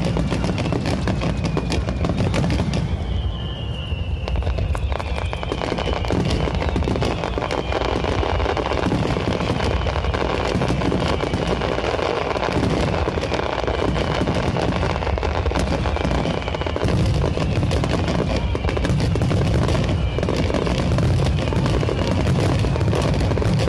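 Fireworks display: aerial shells bursting in a dense, continuous stream of bangs and crackling with a deep rumble underneath, barely letting up.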